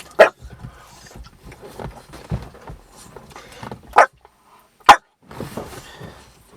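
A dog barking in three short, sharp barks: one right at the start, one about four seconds in and one just before five seconds.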